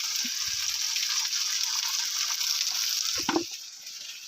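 Chicken pieces frying in oil in a karahi, a steady sizzle. A short clatter comes about three seconds in, and the sizzle then fades.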